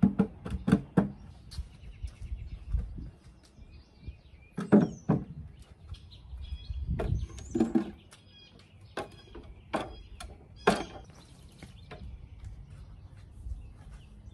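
Wooden end tables being lifted and set down on concrete, giving a series of irregular knocks and thumps. Birds chirp in the background.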